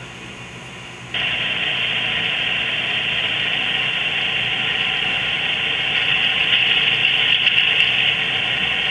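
Sound-equipped HO scale model diesel locomotive playing an idling engine sound through its tiny onboard speaker: a steady, tinny noise that starts abruptly about a second in and grows a little louder later.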